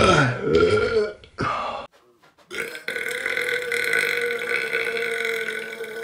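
A man belching loudly. A long burp falls in pitch and ends about a second in, with a short one just after. After a brief break comes another long, drawn-out burp held at a steady pitch.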